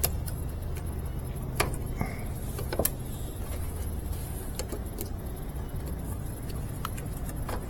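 Scattered light clicks and taps of parts and tools being handled during work on a washing machine's motor capacitor, over a steady low hum.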